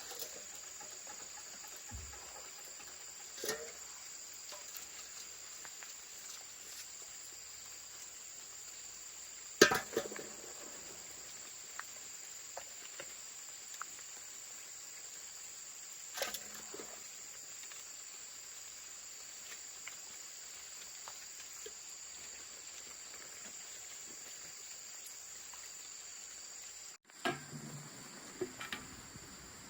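Insects chirring in a steady high constant drone, with a few sharp knocks on top, the loudest about ten seconds in and several close together near the end.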